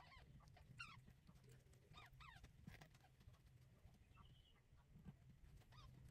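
Newborn kittens, about six days old, mewing while they nurse: about half a dozen short, faint, high-pitched squeaky calls, most sliding down in pitch.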